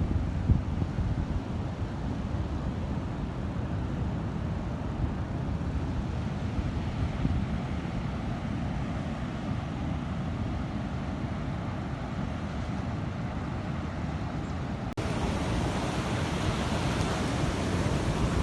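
Sea waves surging and washing on a beach, with wind buffeting the microphone as a low rumble. About 15 s in there is a brief break, after which the surf's hiss is brighter.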